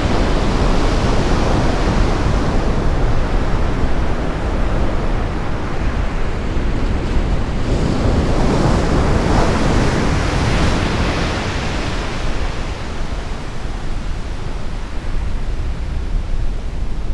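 Sea surf breaking and washing up a sandy beach, with wind rumbling on the microphone. The wash swells in the first couple of seconds and again from about eight to twelve seconds in, as a wave breaks.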